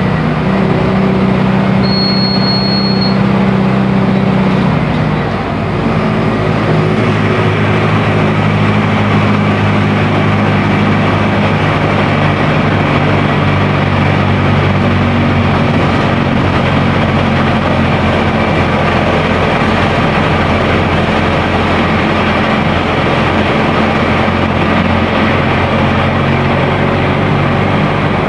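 Mercedes-Benz OF-1418 bus's front-mounted diesel engine running steadily under way, its note changing about five seconds in. A short high beep sounds about two seconds in.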